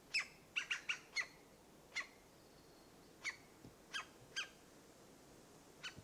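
Green woodpecker giving short, sharp single call notes, each a brief high note dropping in pitch. They come in an irregular series of about ten, with four or five in quick succession near the start.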